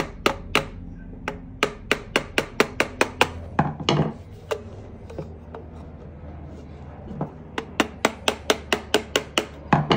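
A screwdriver, its blade set against the edge of a brass barometer bezel, being tapped on the butt of its handle with a second screwdriver's handle. The taps come quick and sharp, about three a second, then pause for a few seconds near the middle before a second run: this is working the press-fit bezel rim loose from the case.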